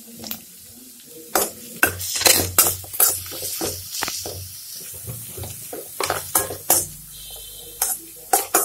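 Chopped onions and green chilli sizzling in hot oil in a metal pan as they sauté, with a spoon scraping and clinking against the pan in quick, irregular strokes.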